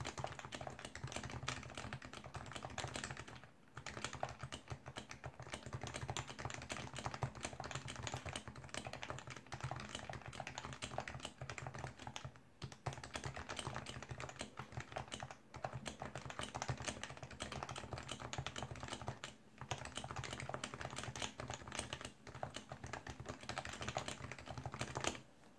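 Typing on a stock HHKB Pro 1 keyboard with Topre rubber-dome switches: a dense, steady stream of keystrokes broken by a few short pauses.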